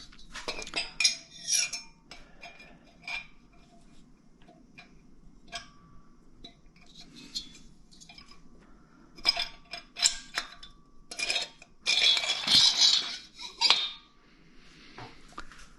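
Metal engine parts clinking, knocking and scraping as they are handled and fitted, with a busier burst of rattling and scraping about three-quarters of the way through.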